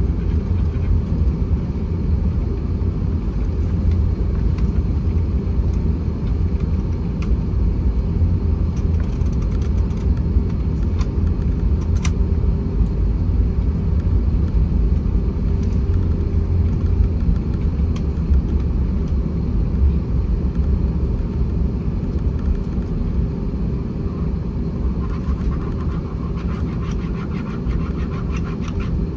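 Steady low rumble of an Airbus A321-231's IAE V2500 jet engines and airflow, heard inside the passenger cabin, with faint light rattles near the end.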